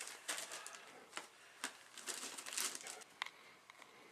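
Faint, intermittent crinkling and rustling of packaging being handled, with a few light clicks.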